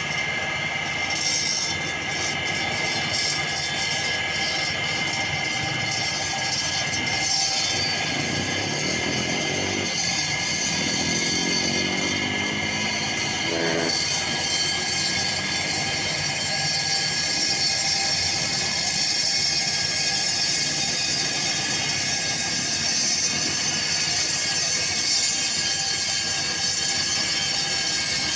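Petrol-engined walk-behind concrete floor saw running steadily, its water-fed blade wet-cutting into a concrete floor.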